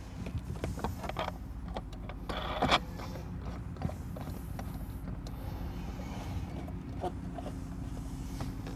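Scattered clicks and knocks of hardware being handled over a steady low hum, with a louder rattle about two and a half seconds in.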